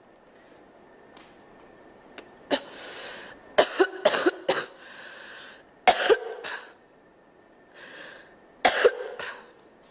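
A girl coughing: after a couple of quiet seconds she draws a breath and gives a quick run of three or four coughs, then single harsh coughs about two and about five seconds later, each with an audible inhale before it.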